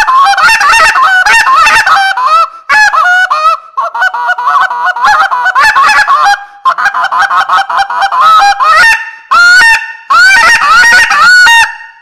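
Coles Carnage Collector short-reed goose call with a shaved reed, blown loudly in about six fast runs of clucks and honks. Each note breaks sharply between a low and a high tone, with brief pauses between the runs, and the calling stops just before the end.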